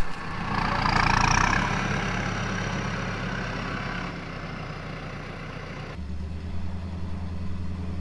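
A vehicle engine idles steadily, with a brief rushing hiss about a second in. About six seconds in the sound changes abruptly to a deeper, stronger engine note.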